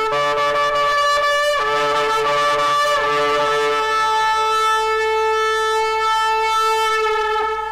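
A shofar sounding one long, sustained blast. There is a brief waver in pitch about a second and a half in, and the blast trails off at the end.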